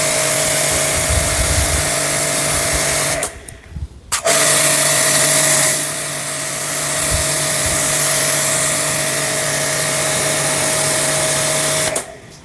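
Orion Superjet 100S electric pressure washer running, its motor humming steadily under the hiss of water spraying through a 25-degree tip spray nozzle. The machine cuts out abruptly about three seconds in and starts again about a second later, then stops again near the end.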